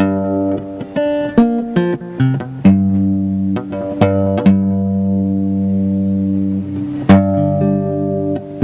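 Acoustic guitar strumming chords, each strum left to ring, with several chord changes and a hard strum about seven seconds in.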